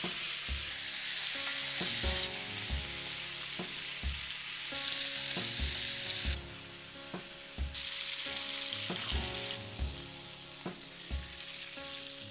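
Lamb rump steaks sizzling as they pan-fry in hot fat and foaming butter; the sizzle drops suddenly about six seconds in. Music with a steady bass beat plays underneath.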